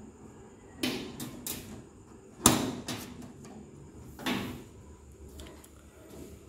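Sheet-metal stovetop oven door being unlatched and swung open by its knob latch. A few light clicks come first, then a sharp metallic clack about two and a half seconds in, and another knock a little after four seconds as the door swings open.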